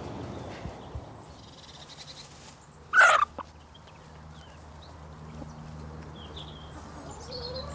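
A domestic goose gives one short, loud honk about three seconds in, with a few faint higher calls from the flock around it and another rising call near the end. A faint steady low hum sits underneath.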